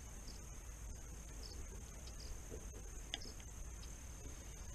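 Crickets trilling steadily as an even high-pitched tone, over a low outdoor rumble, with one light click a little past three seconds in.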